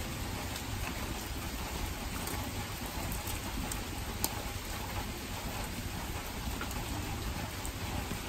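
Steady rain falling, an even hiss with a few light clicks.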